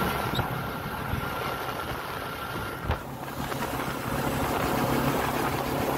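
A vehicle's engine idling steadily, with a single short knock about three seconds in.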